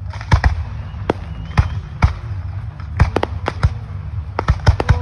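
Aerial firework shells bursting overhead in an irregular volley of about a dozen sharp bangs, coming thicker toward the end, over a low steady rumble.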